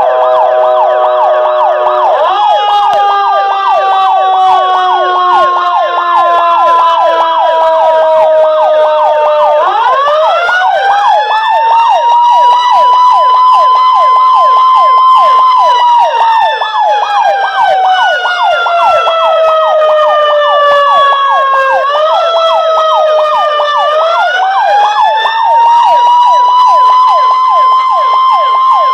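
Fire station siren sounding as a continuous wail. Its pitch slides slowly down, climbs over about two seconds to a held high note, then slides down again, with two more quick rises in the last third.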